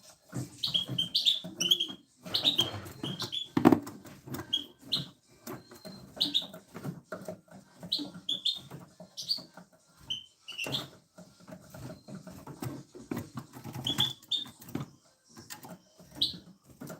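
Small birds chirping: many short, high chirps, some sliding up or down, scattered irregularly throughout. Frequent low rustling and knocking sounds run underneath.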